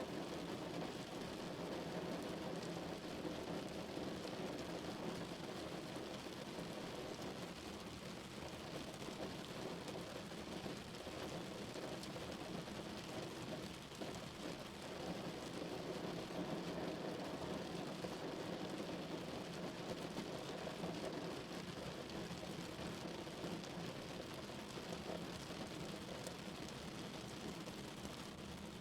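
Steady rain drumming on a car's roof and windows, heard from inside the cabin as a dense, even patter with a low, muffled rumble.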